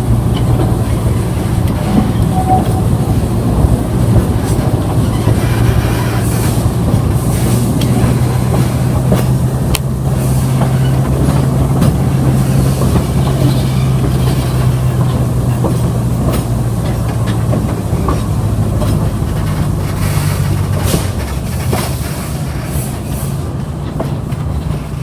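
Narrow-gauge train running along its track: a steady rumble with a low hum and scattered clicks and knocks from the wheels and cars.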